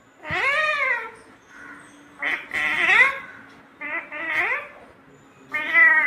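Rose-ringed (Indian ringneck) parakeet giving four drawn-out calls, each rising and then falling in pitch.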